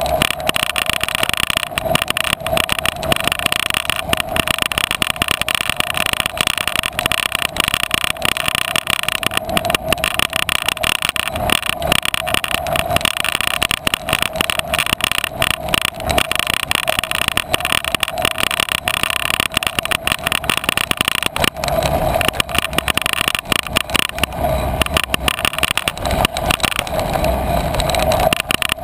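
A bicycle-mounted camera rattling and buzzing steadily as the bike rolls over a bumpy grass trail, with tyre and ground noise and a constant mid-pitched hum. The rumble grows heavier about three quarters of the way through, as the ground gets rougher.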